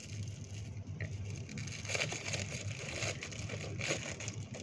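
Chocolate wrapper crinkling in the hands, irregular crackles that come in clusters from about two seconds in, over a steady low hum.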